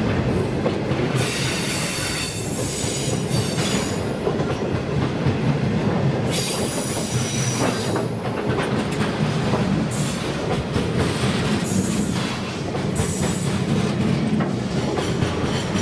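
Loaded grain hopper wagons of a freight train rolling past close by: a steady rumble of steel wheels on rail with scattered clicks over the rail joints. Wheel squeal on the curve comes and goes several times.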